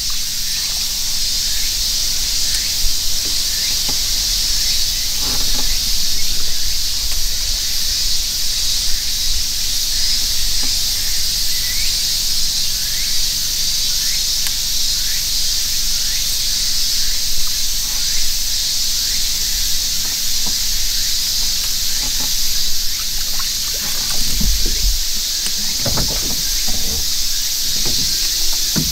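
Summer cicada chorus: a steady, loud, high-pitched drone from the surrounding forest. A few low thumps come near the end.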